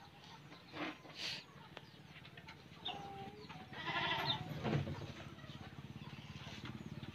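Domestic cat meowing, a short call about three seconds in and then a louder, rougher meow just after, over a low, steady, rapidly pulsing hum.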